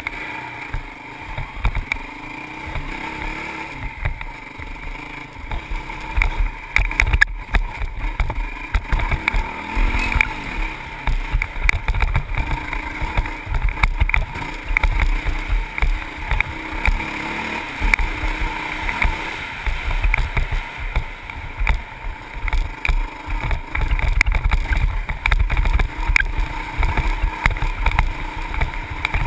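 Honda CRF450X dirt bike's single-cylinder four-stroke engine running under way on a rough trail, its pitch rising and falling with the throttle. Wind buffets the microphone, and frequent short knocks come from the bike jolting over rocks and ruts.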